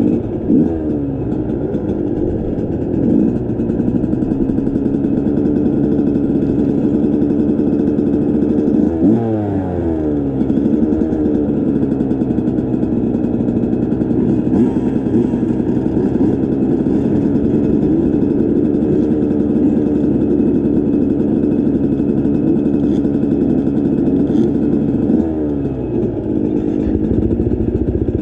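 Dirt bike engine running under way as it is ridden along a trail. The revs drop and climb again near the start, about nine seconds in and again near the end.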